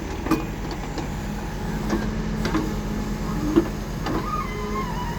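Diesel engine of heavy construction machinery running steadily, with a few short knocks and a faint wavering whine near the end.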